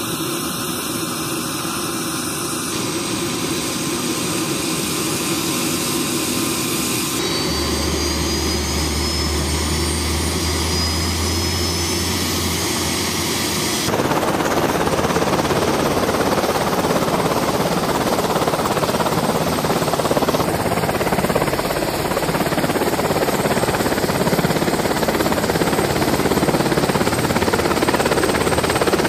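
Twin-turboshaft H-60-series helicopters running on the ground with rotors turning, heard in several clips joined by abrupt cuts. In one clip a high turbine whine rises slowly as the engine spools up, and from about halfway on the engine and rotor noise is louder.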